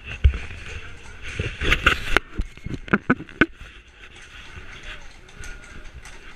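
Horse-drawn carriage rolling over cobblestones: hooves clopping and wheels rattling, with a run of sharp knocks in the middle. Voices of people on board can be heard.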